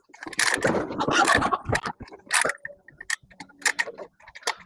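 Release mechanism of a hog drop trap being worked: a rough scraping rattle for about a second and a half, then a string of sharp, irregular metal clicks. The motor-driven release is what the hogs hear just before the trap drops.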